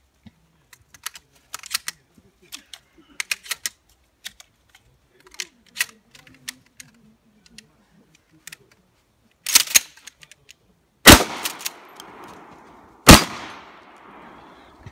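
Shotgun shells being clicked one by one into a tactical shotgun, then a loud clack of the action. Two shotgun blasts about two seconds apart follow, each with an echoing tail.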